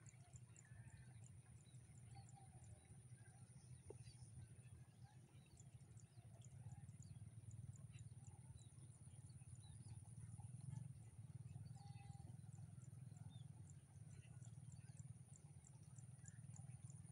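Near silence in open fields: a faint, thin, high steady whine with regular faint ticks, over a low rumble, with a few faint scattered chirps.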